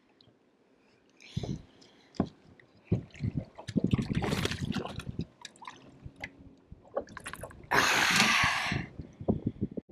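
Hooked smallmouth bass splashing at the surface beside the boat, with scattered knocks and thumps; the loudest splash comes about eight seconds in and lasts about a second.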